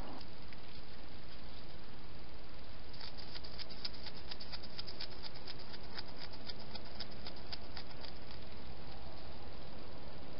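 European hedgehog close to the microphone: a quick, irregular run of small clicks and ticks starting about three seconds in and lasting about five seconds, over a steady hiss.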